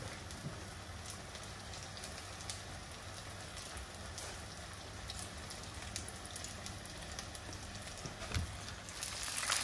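Battered fish shallow-frying in hot sunflower oil in a pan: a steady fine crackle with scattered small pops, growing louder near the end.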